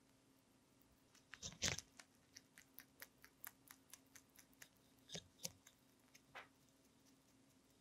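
Lionhead–Dutch mix rabbit biting into a whole raw cucumber with one loud crunch about a second and a half in, then chewing it in quick, crisp crunches, several a second, that stop a little over a second before the end.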